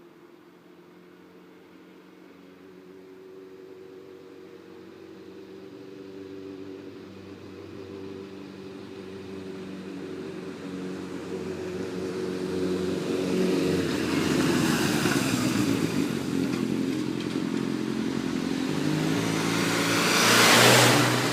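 Suzuki GSX-R600 K3 inline-four motorcycle engine running, growing steadily louder, with its loudest swell near the end. The bike is being shown for a knocking noise from the engine.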